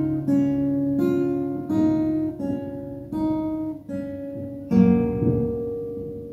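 Steel-string acoustic guitar with a capo, picked one string at a time in a slow arpeggio pattern, a new note about every two-thirds of a second. Near the end a fuller chord is struck and left to ring, fading away.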